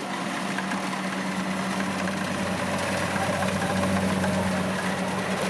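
Kubota DC-70 rice combine harvester's diesel engine running steadily with a constant hum, getting gradually a little louder.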